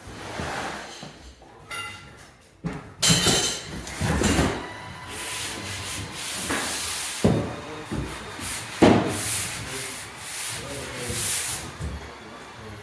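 Sanding: irregular scraping strokes of uneven length, with a few sharp knocks between them.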